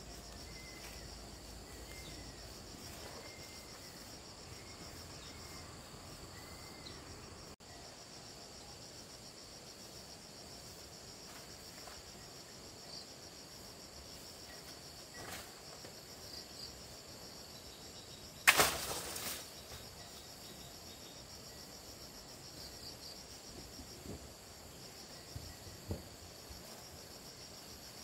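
Steady, high-pitched chirping of insects such as crickets. About two-thirds of the way through there is one loud sudden knock or clatter, the loudest sound here.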